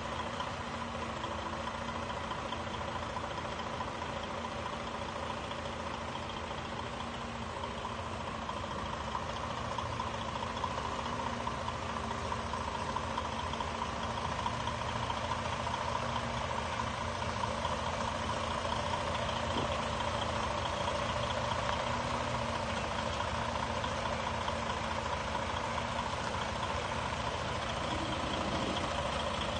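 Semi-truck diesel engine running steadily at low revs while the tractor-trailer backs slowly, a little louder from about ten seconds in.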